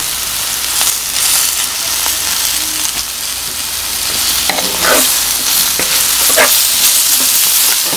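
Chicken with freshly added sliced onion and bell peppers sizzling in hot oil in a pan, with a few scrapes of stirring in the second half.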